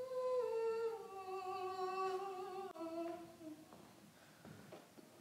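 A woman humming a slow tune in a few long held notes that step down in pitch, fading out about three and a half seconds in.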